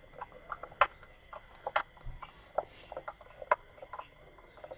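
Screwdriver turning a screw out of a miter saw's plastic belt cover: scattered, irregular small clicks and ticks of the metal tip working in the screw head against the plastic.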